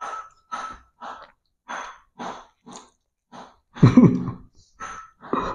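Short breathy mouth sounds from people eating, coming about twice a second, with a louder voiced sound like a laugh or exclamation about four seconds in.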